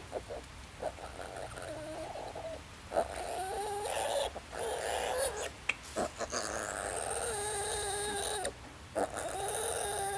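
Piglet squealing while held on its back for castration: short cries at first, then long, wavering squeals from about three seconds in, with brief breaks between them.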